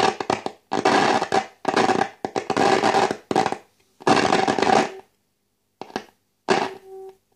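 Loudspeaker of a De Wald model 310 valve radio giving rough, noisy bursts with a steady tone in them, cutting in and out about once a second. Near the end the tone sounds on its own for a moment. The set can barely play because of a short circuit that the repairer puts almost certainly down to a capacitor.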